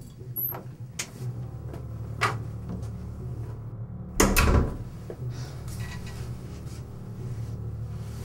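A few sharp knocks, with a louder thump about four seconds in, over a steady low room hum.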